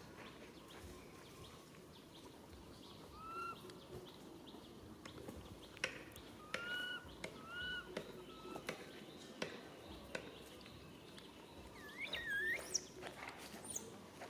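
A baby monkey giving short, high, arched calls: three brief calls spaced a few seconds apart, then a louder, wavering call near the end, with scattered light clicks and knocks in between.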